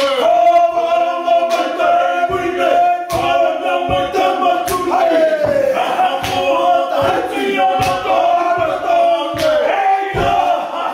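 Group of Māori men chanting a haka in unison, their voices held on one pitch, with sharp percussive hits about once a second.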